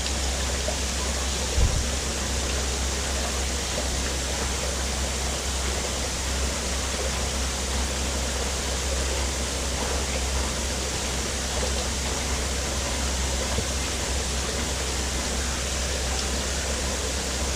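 Steady hiss of water running from a wall pipe into a plastic tub, with a steady low rumble beneath it. A single soft bump sounds about a second and a half in.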